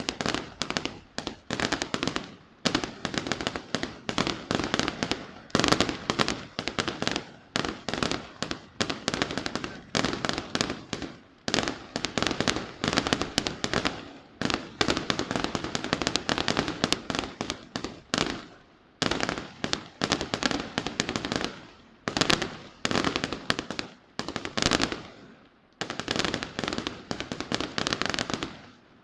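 Fireworks display: rapid strings of sharp bangs and crackles going off in dense clusters, with short pauses between them.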